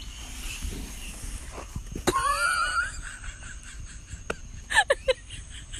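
A toddler's voice. A sharp thump about two seconds in is followed by a high, wavering squeal lasting about a second, then a few short, high, falling vocal sounds near the end.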